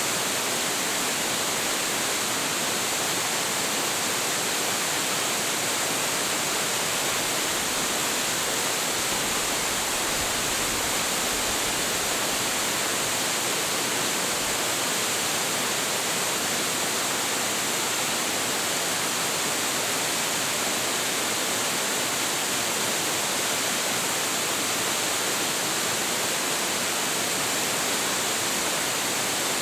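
Hiji Falls, a 25.7 m waterfall with a heavy flow, pouring steadily: an even, unbroken rush of falling water.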